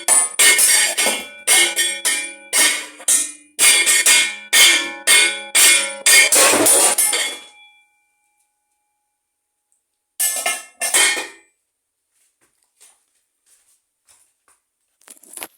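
Bells struck in a quick, steady rhythm of about two strikes a second, each ringing on, until they stop and the ringing dies away about seven seconds in. Two more strikes follow about ten seconds in, then only faint clicks.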